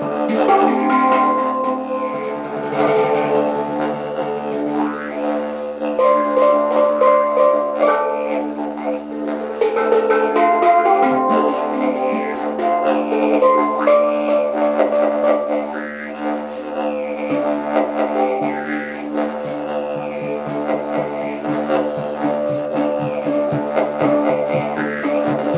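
Didgeridoo playing a continuous drone while a hang is struck by hand. The hang's ringing, melodic notes rise and fade over the drone.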